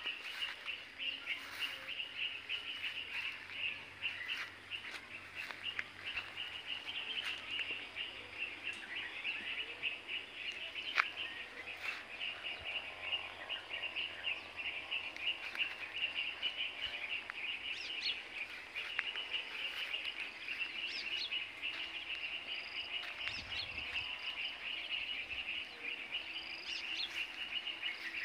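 A dense, unbroken chorus of high chirping birds, with a few brief, higher calls standing out in the second half and one sharp click about eleven seconds in.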